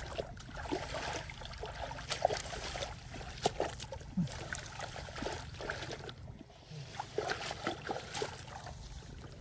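Hands sloshing and splashing in shallow muddy paddy water, with many irregular small splashes and drips and a couple of brief falling squeaks.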